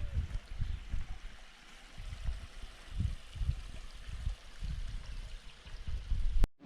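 Water running over a garden pool's small waterfalls, a steady rush, with irregular low rumbling underneath; it cuts off suddenly near the end.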